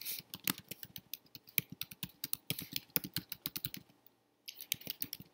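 Typing on a computer keyboard: a quick, uneven run of key clicks, with a short pause about four seconds in before the typing resumes.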